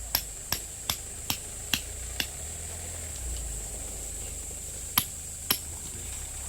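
Hammer blows: sharp knocks in an even rhythm, about two and a half a second, six in a row over the first two seconds, then two more about five seconds in, over a steady high-pitched hiss.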